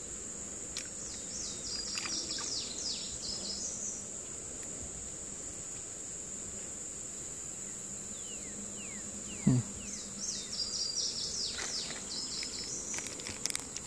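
Steady high-pitched insect drone, with a bird's quick downward-sweeping calls repeated about a second in and again near the end. One sharp knock about nine and a half seconds in is the loudest sound.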